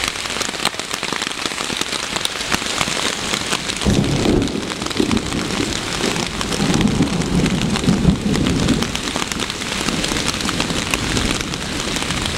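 Rain pattering steadily on a Hennessy Hammock's rain fly during a thunderstorm, with a low rumble of thunder from about four seconds in that lasts about five seconds.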